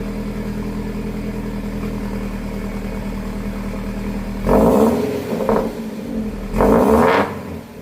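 Subaru FB20D 2.0-litre boxer four with a Tsudo unequal-length header and Borla axleback exhaust, idling with the uneven boxer rumble that the unequal-length header gives. It is then blipped three times, a short rev, a smaller one, and a bigger rev near the end, each rising and falling in pitch.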